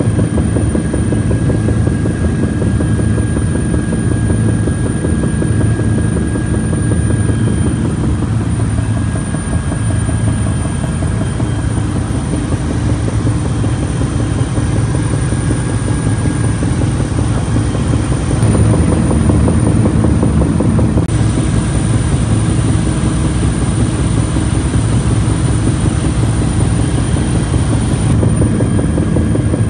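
Steady drone of an aircraft's engines heard from inside the cabin in flight: a low hum with a faint steady whine above it.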